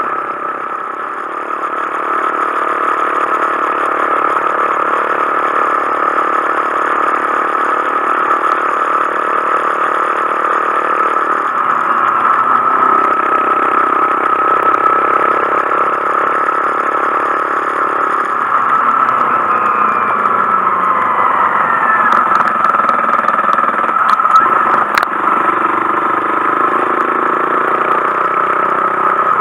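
Honda Monkey 125's single-cylinder engine running under way, its pitch dropping and rising a few times with changes in engine speed.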